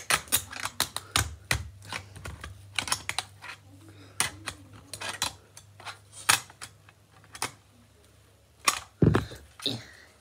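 A screwdriver prying and poking at a small red toy car, giving irregular clicks, taps and scrapes of tool on toy, with a heavier knock near the end.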